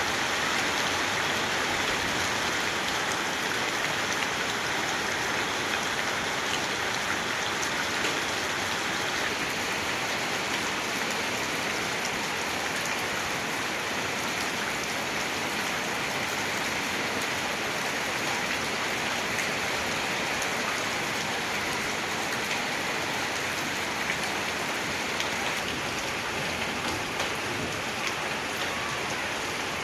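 Heavy rain pouring steadily, drumming on surfaces with a dense, even hiss.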